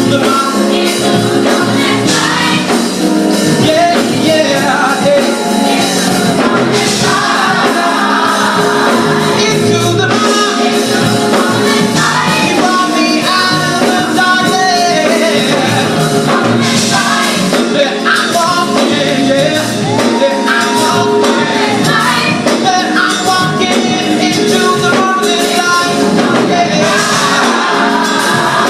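Gospel vocal ensemble singing in close harmony over a band, loud and steady, with sung runs rising and falling.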